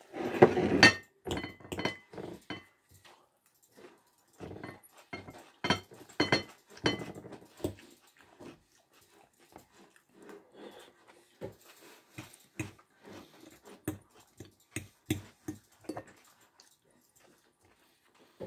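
Close-miked eating sounds: chewing and lip-smacking in irregular bursts, loudest about the first second, with occasional small clicks of a fork against a dish.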